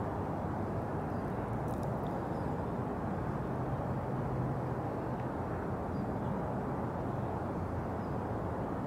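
Steady low outdoor background rumble with a faint low hum, of the kind made by distant traffic or engines; the cat itself makes no sound.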